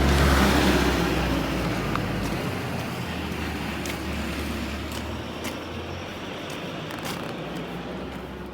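A vehicle passing close by with a low rumble. It is loudest at the start and fades slowly as it moves away.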